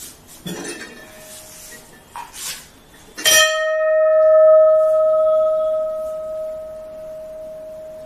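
A 15 kg brass temple bell (ghanta) rung once a little over three seconds in, then ringing on in one strong, steady tone with fainter higher overtones that slowly fades. Before the strike come a few soft knocks of the bell being handled. The seller holds such a long ring to be the mark of a pure brass bell.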